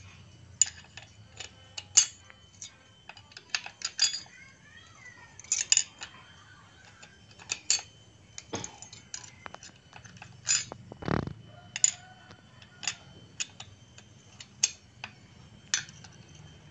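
Yamaha Vixion clutch friction and steel plates being stacked onto the clutch by hand: a run of irregular sharp metallic clicks and clinks. There is a duller, fuller knock about eleven seconds in, over a faint low hum.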